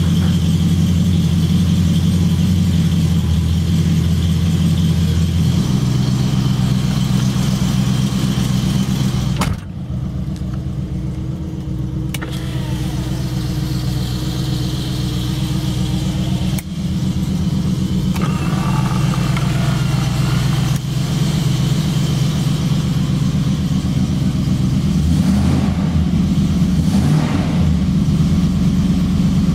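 Triumph Stag's 3.0-litre V8 idling steadily at about 1,000 rpm, heard first at the twin tailpipes and then from inside the cabin. The sound changes abruptly a few times where takes are cut together.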